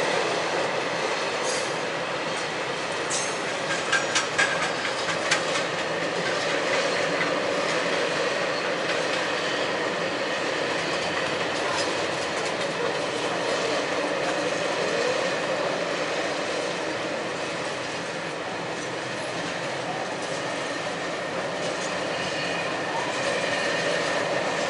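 Freight train rolling past: a steady noise of wheels on rail, with a run of clicks over rail joints in the first few seconds and a thin steady wheel squeal.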